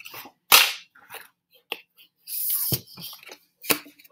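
Handling knocks as a straight edge is picked up and laid against a cardboard rocket body tube on a wooden table. A sharp clack comes about half a second in, a brief scraping rustle and a thump come midway, and a few lighter clicks follow.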